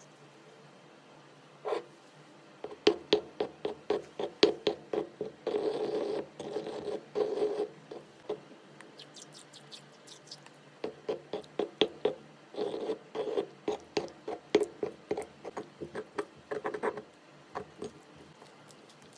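Slime being squeezed and poked by hand, giving a quick series of sharp, sticky pops and clicks in two runs, with a stretch of rougher rubbing in the first run.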